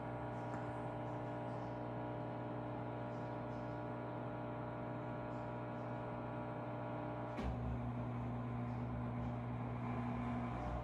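Washing machine running with a steady electric hum. A sharp click about seven seconds in, after which the hum carries on at a different pitch.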